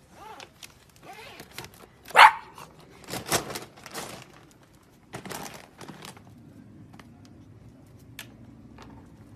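Beagle puppy yipping and barking, the loudest a sharp, rising yip about two seconds in, followed by a few shorter sounds.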